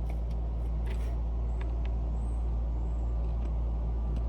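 Steady low hum throughout, with a few faint clicks of small metal parts being handled, about a second in, near the middle and near the end.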